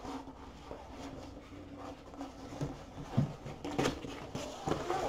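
A large rolled diamond-painting canvas with its plastic protective film being unrolled and handled on a wooden table: irregular crinkling and rustling of the stiff sheet, with a few louder crackles and knocks between about three and five seconds in.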